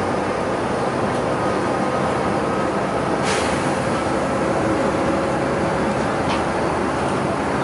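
City bus driving at cruising speed, heard from inside the cabin: a steady drone of engine and tyre noise with a faint steady whine. Two brief clicks come through, about three seconds in and about six seconds in.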